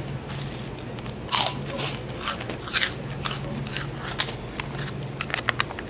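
Someone biting and chewing crunchy Meoktaekkang snack sticks: irregular crisp crunches every half second or so, then a quick run of small crunches near the end.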